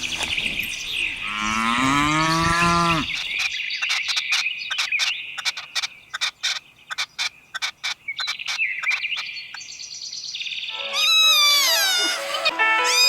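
A cow mooing once, briefly, over steady high bird chirping, followed by a run of rapid sharp chirps or clicks. Near the end comes a burst of several falling calls from another animal.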